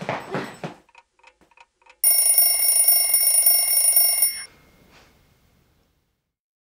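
A woman's strained cries trailing off in the first second, then, after a short pause, a loud, shrill steady electronic tone like an alarm sounds for about two seconds and cuts off abruptly.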